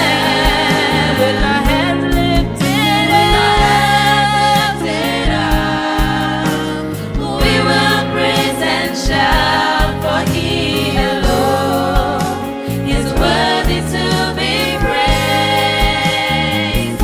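Youth choir singing a gospel song, with instrumental accompaniment carrying low notes beneath the voices.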